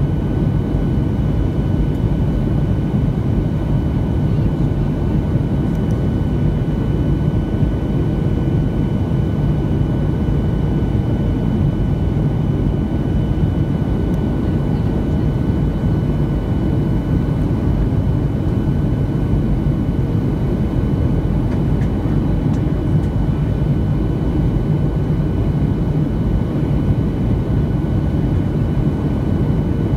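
Steady jet cabin noise inside a Boeing 737-700 on descent: a deep, unchanging rumble of airflow and the CFM56-7B turbofan engines, with two faint steady high tones running through it.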